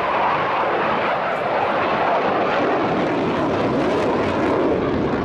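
Mitsubishi F-2 fighter jets flying over, their General Electric F110 turbofans making a loud, steady jet rush whose pitch slowly falls.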